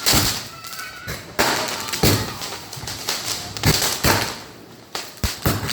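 Firecrackers going off: about eight or nine sharp bangs at irregular intervals, some in quick pairs.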